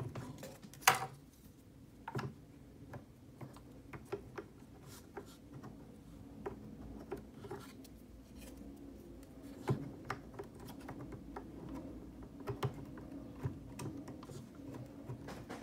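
Handling of plastic quick-release drone propellers on a DJI Mavic 2 Pro: scattered light clicks and taps as the props are pushed onto the motor mounts, twisted to lock and their blades swung open, with the sharpest click about a second in.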